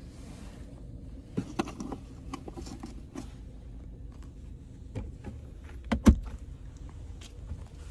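Centre-console armrest lid of a 2020 Ford Fusion SE being handled: a few light clicks and rubbing sounds, then the lid shut with a single thump about six seconds in, over a low steady cabin hum.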